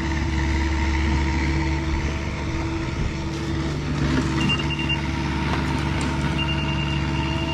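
Diesel engine of compact earthmoving equipment running steadily. A high, steady electronic tone sounds briefly about halfway through and comes back near the end.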